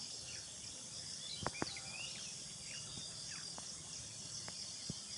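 Rural outdoor ambience: a steady high-pitched drone of crickets, with many short, quick bird chirps over it. A couple of sharp clicks come about a second and a half in, and another near the end.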